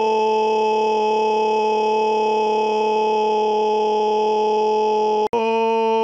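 A loud scream held at one steady pitch. It cuts out for an instant about five seconds in and carries straight on at the same pitch.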